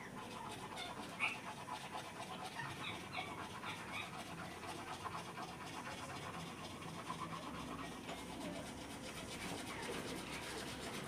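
Pet rose-ringed (ring-necked) parakeet making soft chattering sounds, with a few short high chirps about a second in and again around three to four seconds in.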